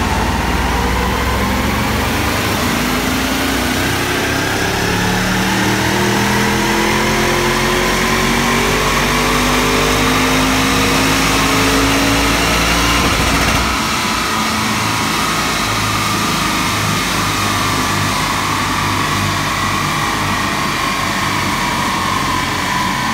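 Porsche Cayenne Turbo's EA825 twin-turbo V8 pulling under load on a chassis dynamometer, its revs climbing steadily for about thirteen seconds. Then the low rumble drops off suddenly and a steadier, slowly falling note carries on as the engine and rollers run down.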